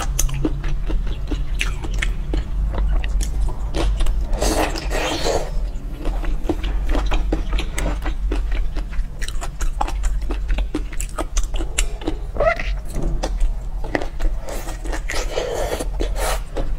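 Close-miked wet chewing and biting of raw soy-marinated shrimp, a quick run of small mouth clicks and smacks. There are two longer, noisier wet stretches, about four seconds in and near the end, over a steady low hum.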